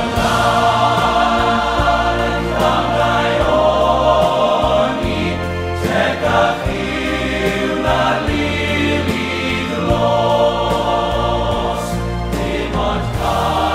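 Music of a choir singing in held phrases over a bass accompaniment.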